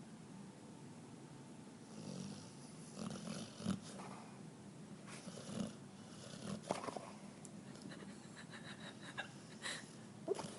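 A sleeping dog snoring and breathing steadily as she dreams. From about two seconds in, the breathing is broken by irregular short snorts and whimpers.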